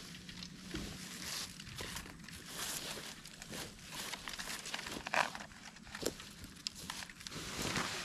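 Tent fabric rustling and crinkling with light knocks from the tent poles as a tent is pitched, in scattered short handling noises.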